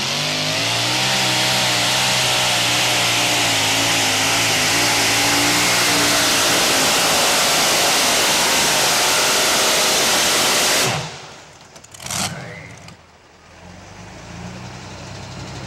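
Two-wheel-drive pulling truck's supercharged engine at full throttle as it drags the weight sled, its pitch wavering at first and then holding at a steady scream. The engine is cut suddenly about eleven seconds in, with one brief burst a second later, leaving a low sound that slowly grows.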